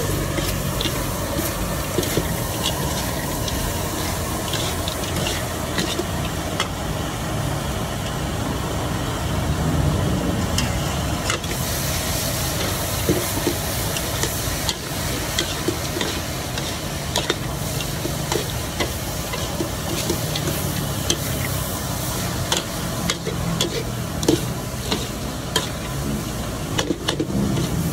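Street-food stall cooking: frequent sharp clinks of metal utensils on pans and trays over a steady sizzling hiss, with a low hum underneath at times.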